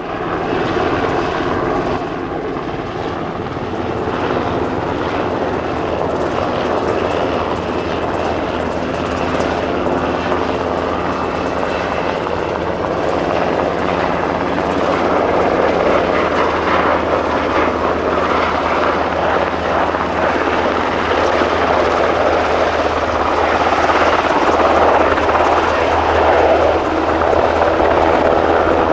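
A JMSDF Sikorsky UH-60J Black Hawk-type helicopter flying in, its main rotor and twin turboshaft engines running steadily and growing gradually louder as it comes in low and close.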